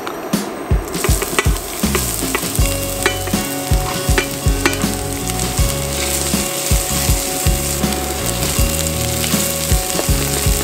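Chopped shallots and garlic sizzling in olive oil in a stainless steel frying pan, the sizzle setting in about a second in, while a spatula stirs them with repeated scrapes and taps against the pan.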